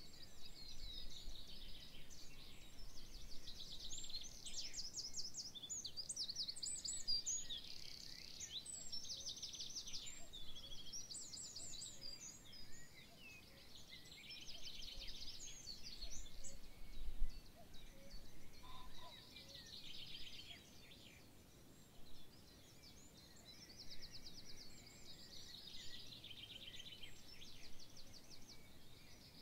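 Several songbirds singing at once, with fast trills and high chirps overlapping and short lulls between phrases, over a faint steady background hiss.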